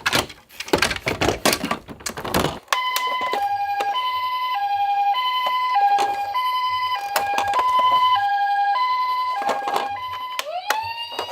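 A burst of rapid clattering, then a Japanese-style two-tone ambulance siren switching between a high and a low tone ('pee-po') about every half second. Just before the end it changes to a wail that rises and holds.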